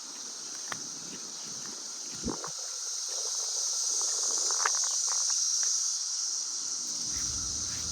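Steady high-pitched insect drone, swelling a little in the middle, with a few faint clicks and rustles.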